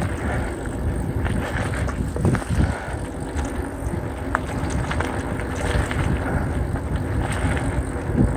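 Mountain bike rolling along a trail: steady tyre and frame rumble with a few sharp clicks, and wind rushing over the microphone.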